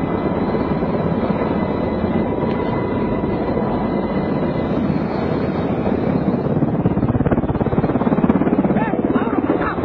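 Military helicopter's engine and rotor running loud and steady, heard from inside the open cabin. A steady whine fades out about four seconds in, and near the end the noise grows heavier and more fluttering.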